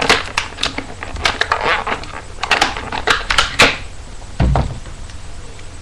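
A Gerber Bear Grylls multitool being taken out of its sheath by hand, with a quick series of sharp clicks and crackles over the first few seconds. A dull thump follows about four and a half seconds in.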